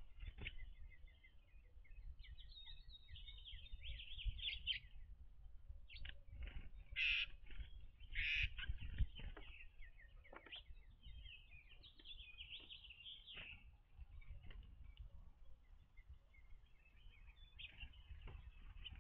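Small birds chirping and twittering in quick runs of high notes, with two louder, harsher calls about seven and eight seconds in. A low rumble runs underneath.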